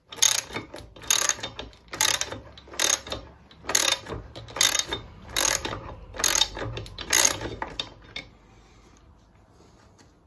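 Socket ratchet wrench clicking as it undoes an engine mounting bolt. There are about nine strokes, a little under one a second, and they stop about eight seconds in.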